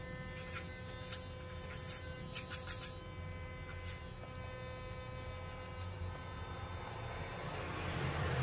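Electric hair clipper running with a steady buzz, getting louder near the end. A few light, sharp clicks in the first few seconds.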